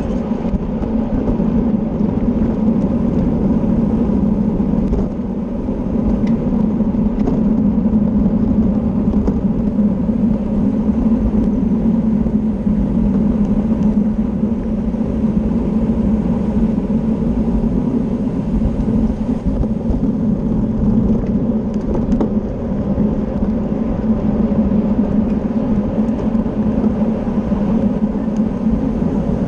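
Steady wind rushing over a racing cyclist's onboard camera microphone at race speed, a loud unbroken roar that dips briefly about five seconds in.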